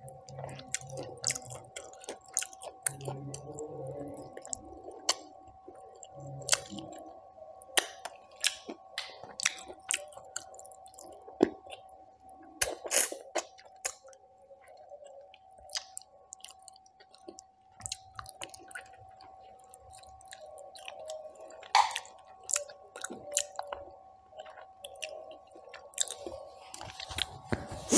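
Close-miked chewing with wet mouth smacks and clicks as a person eats mutton curry and rice by hand, with a few louder smacks along the way. A faint steady hum sits underneath.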